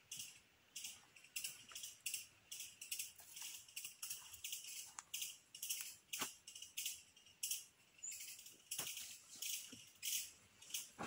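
Forest insects calling in a steady run of short, high-pitched rattling pulses, about two a second, with a few faint knocks.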